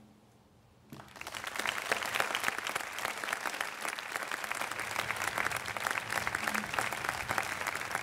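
Large crowd applauding. The clapping breaks out suddenly about a second in, after a brief near-quiet, and then holds steady and dense.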